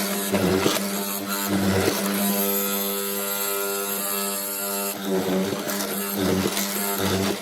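An electric woodworking power tool's motor running with a steady hum, its sound shifting now and then during the first two seconds and again from about five to seven seconds in.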